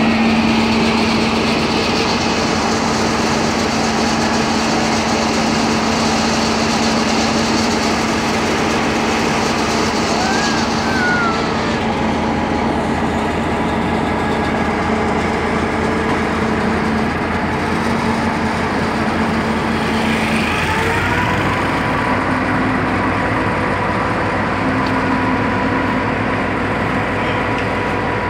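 Diesel-electric locomotive's engine running steadily at close range as the train rolls slowly past, its note changing about 20 seconds in. Brief squeals come from the wheels and brakes.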